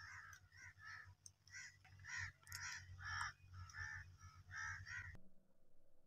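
Crows cawing in short, faint calls, about two a second, cutting off suddenly about five seconds in.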